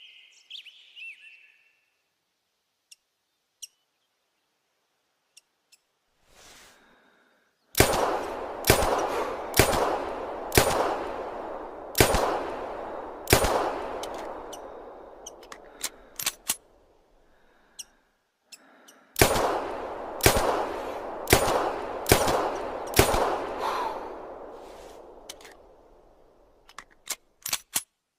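Springfield Armory Omega pistol firing two strings of shots, about six and then about five, roughly one a second, each shot with a long echoing tail. A bird chirps briefly at the very start.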